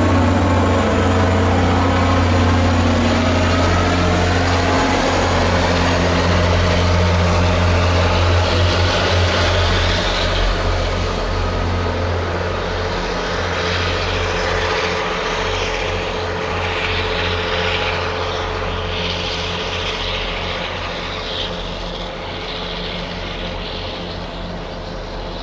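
Diesel locomotive of an MBTA commuter train running under power as the train pulls away, a heavy low engine drone with the clatter of the coaches. After about ten seconds the engine sound fades gradually, leaving a hiss of wheels on rail.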